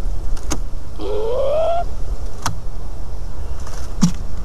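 A bird gives one rising call lasting just under a second, about a second in, heard under the nest and described as a funny call. A few sharp clicks come before and after it over a steady low rumble.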